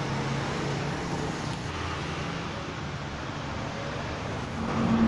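Electric motor of a workshop machine running steadily, a low hum under a broad hiss.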